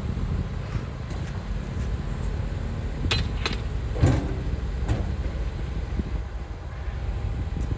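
Heavy earthmoving machinery running with a steady low diesel rumble, with a few sharp knocks about three to five seconds in, the loudest a little past the middle.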